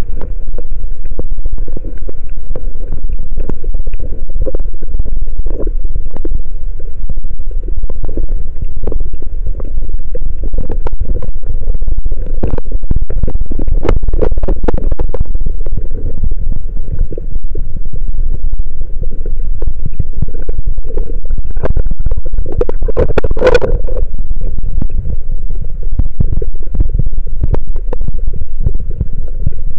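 Muffled underwater sound from a camera in a waterproof housing: a loud low rumble of moving water, dotted with many small knocks and scratches from the housing being handled. One louder, sharper crackle comes about three-quarters of the way through.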